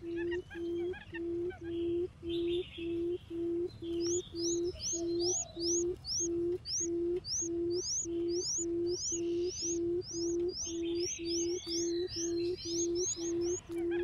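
Barred buttonquail giving its low booming 'um' call: an even train of short hoots, about two to three a second. This is the call used to lure buttonquails in. From about four seconds in, small birds chirp over it in quick rising notes.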